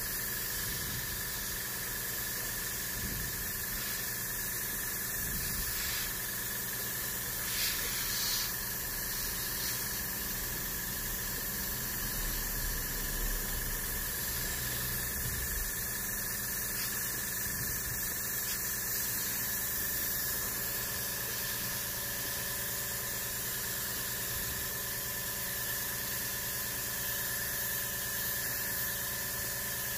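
Gravity-feed airbrush spraying primer in light, speckled coats: a steady hiss of air and paint with a thin, high, steady whistle over it, briefly swelling about eight seconds in.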